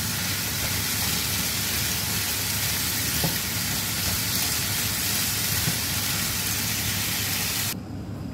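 Pork and celery sizzling in a hot frying pan as a spatula stirs them, with a couple of light spatula taps; the steady sizzle cuts off abruptly near the end.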